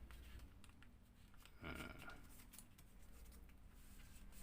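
Faint handling of origami paper being folded and creased by hand: soft scattered crinkles and light taps, with one slightly louder rustle about halfway through.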